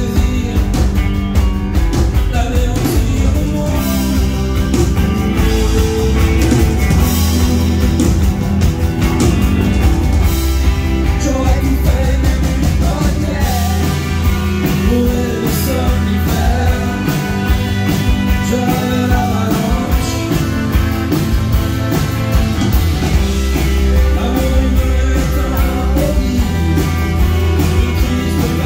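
Live rock band playing: strummed acoustic guitar and drums, with a man singing lead.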